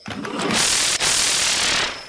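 Orange toy steam locomotive's motor and plastic gears running, driving its wheels. It starts about half a second in, breaks off briefly a second in, and stops near the end.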